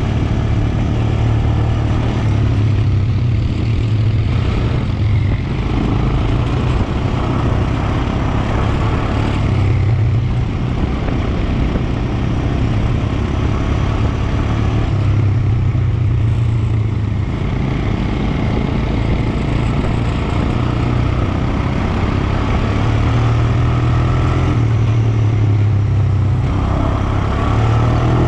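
Quad bike (ATV) engine running while riding at speed, heard from the rider's seat. It is loud and fairly steady, with a broad rushing noise over the engine note.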